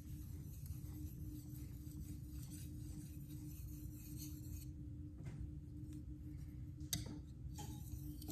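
Steel knife blade being stroked across a sharpening whetstone: faint, repeated scraping, with a sharp click a little before seven seconds in.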